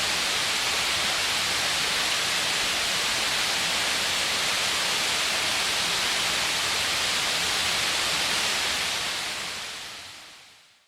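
Waterfall rushing steadily, an even roar of falling water that fades out over the last two seconds.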